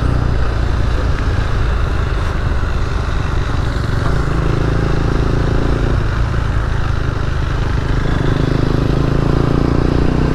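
Single-cylinder KTM RC 200 motorcycle engine running steadily at highway speed, with heavy wind rush on the microphone and a second motorcycle riding alongside. A higher engine note comes in about four seconds in and again from about eight seconds.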